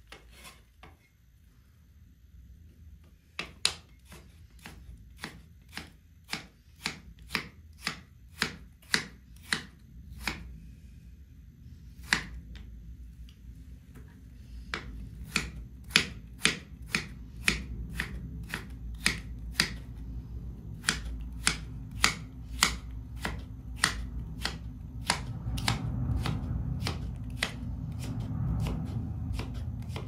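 Kitchen knife chopping potato and radish into thin shreds on a cutting board: a long run of sharp knocks, about two a second, with a couple of short pauses.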